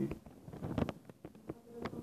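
Faint, irregular clicks and ticks, about half a dozen, over a low hiss.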